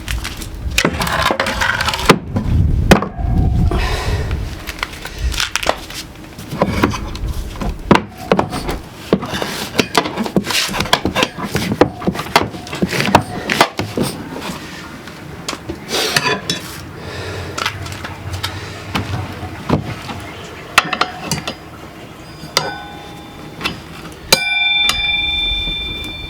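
Metal hand tools clinking and knocking against motorcycle wheel parts in many irregular strikes. Near the end a ringing tone sounds briefly, then again for about two seconds.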